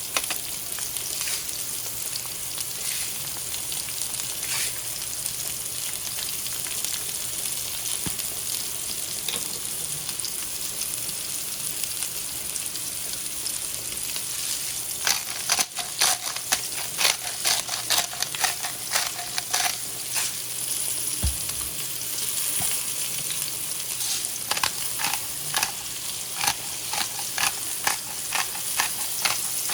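Sliced beets sizzling steadily in hot olive oil in a frying pan. From about halfway through, a wooden spatula clacks and scrapes in the pan as the beets are stirred and turned.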